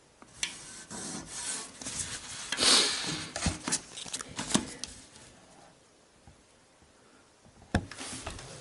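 A large paper plan rustling and rubbing as hands slide over the sheet, loudest in the first few seconds, with a few light taps. Near the end there is one sharp click.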